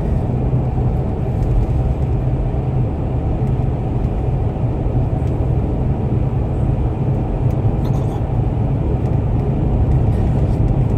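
Steady low rumble of a car with its engine running, heard from inside the cabin.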